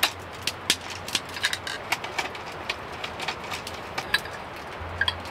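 Wood stove fire crackling, with sharp irregular pops a few times a second over a steady hiss.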